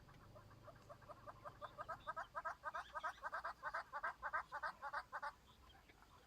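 A bird calling with a long series of clucking notes that speed up to about five a second and grow louder, then stop abruptly about five seconds in.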